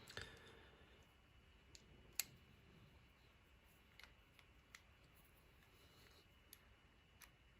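Faint, scattered small clicks of padlock parts knocking together as the lock cylinder is worked back into the padlock body, the sharpest a little after two seconds in.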